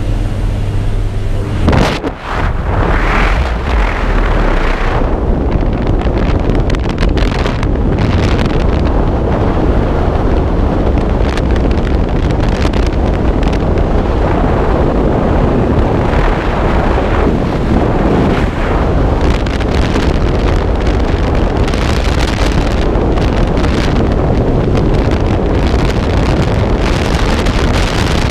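Jump plane's engine drone at the open door, cut off about two seconds in by the exit, then loud, steady freefall wind rushing over the camera's microphone.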